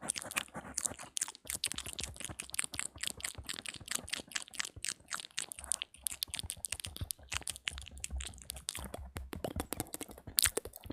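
Close-miked ASMR mouth sounds: rapid, irregular wet tongue clicks and lip smacks, many to the second.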